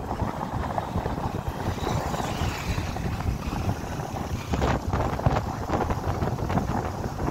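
Wind rushing over the microphone of a moving motorcycle, mixed with the bike's engine and road noise.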